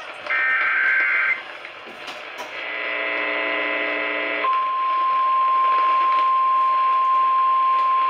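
Emergency Alert System tones coming through an Eton hand-crank emergency radio's speaker, received from an AM station. It opens with a one-second burst of warbling digital header tones. After a short pause comes a buzzy tone for about two seconds, and about halfway in the long steady single-pitch attention tone begins, announcing a severe thunderstorm warning.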